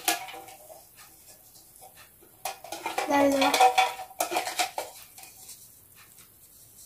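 Clicks and rattles of a small box of paper slips being handled by hand as a folded slip is taken out and unfolded. A short murmured voice comes in about three seconds in.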